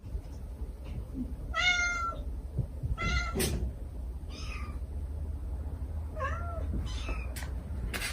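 A mother cat calling softly and her kittens mewing, about five short meows a second or so apart, some higher-pitched than others, with a few sharp clicks and a steady low rumble underneath.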